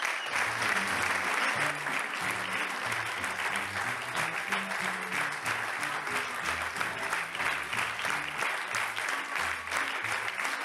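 Theatre audience applauding steadily, with music and a low, stepping bass line underneath.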